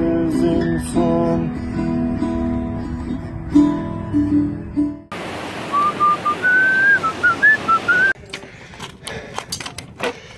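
Acoustic guitar being strummed and picked, cut off suddenly about five seconds in. Then comes a steady wind-like noise with someone whistling a short wavering tune over it, and near the end a run of sharp clicks and rattles.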